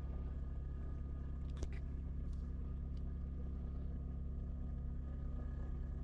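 Kia Optima Hybrid's 2.4-litre four-cylinder petrol engine idling steadily, heard from inside the cabin, with one sharp click about one and a half seconds in.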